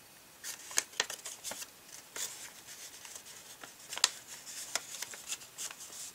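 Paper being folded and pushed into place by hand: rustling with scattered sharp little clicks of the creasing paper, the loudest about four seconds in.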